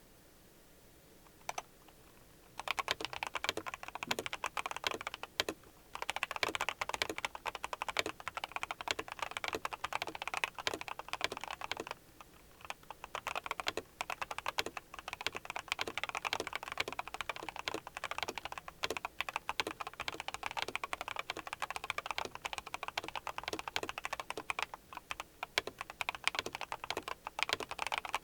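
Typing on a Yunzii YZ75 Pro mechanical keyboard fitted with KAT-profile PBT double-shot keycaps, the board modded with PE foam and tape. After a single click, fast continuous keystrokes start about two and a half seconds in, with two short pauses.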